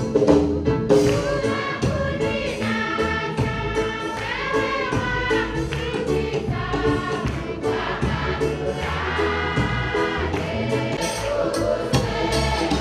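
A church choir and congregation singing a lively hymn together, with hand-clapping keeping a steady beat.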